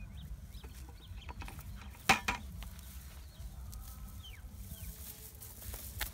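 Outdoor ambience with a steady low rumble and faint short chirps from birds, broken about two seconds in by a sharp double knock, the loudest sound.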